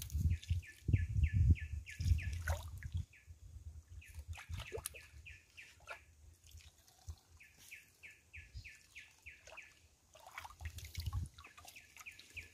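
Hands sloshing and splashing in shallow stream water, mostly in the first few seconds and again near the end. A bird calls a rapid run of short repeated notes, about six a second, twice.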